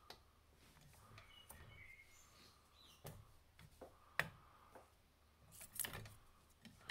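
Near silence: quiet room tone with a few faint clicks and taps from a diecast model excavator bucket being handled. The sharpest click comes about four seconds in, and a small cluster follows near the end.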